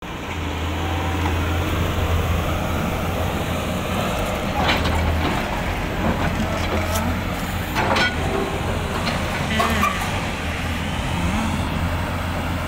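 Hyundai 450 tracked excavator's diesel engine running steadily under load while its bucket pushes against a large cut stone block. A few short, sharp knocks or scrapes come about five, eight and ten seconds in.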